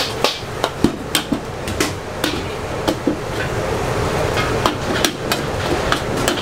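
Metal ladle clanking and scraping against a steel wok as pad thai noodles are stir-fried, in quick irregular strikes a few times a second. Underneath runs the steady rush of the gas wok burner.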